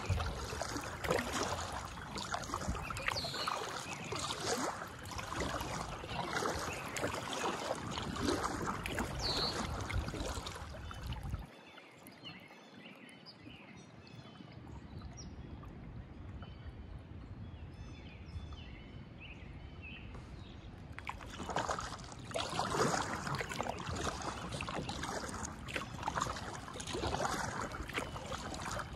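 Kayak paddle strokes dipping and splashing in calm water, one every second or two. The strokes stop about a third of the way in for several quieter seconds, then start again.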